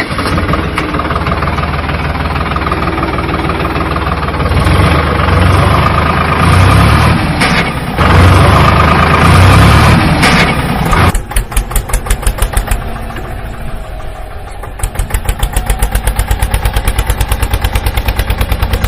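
Tractor engine running hard for about eleven seconds, then dropping to an idle with a steady rapid chugging of about five to six beats a second.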